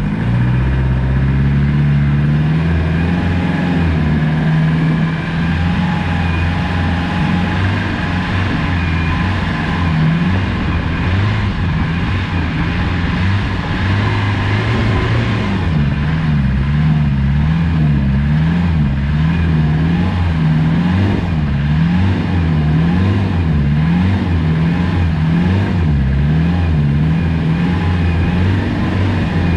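Land Rover Discovery 200Tdi's 2.5-litre turbodiesel four-cylinder engine pulling off-road. It runs at a steady pace at first, then from about halfway its pitch rises and falls about once a second as the revs swing.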